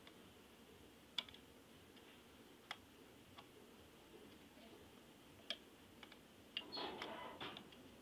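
Faint, sparse clicks of a neon tester screwdriver's metal tip tapping on the terminal screws of a two-gang light switch, about five single clicks a second or so apart, then a short cluster of clicks and handling rustle near the end.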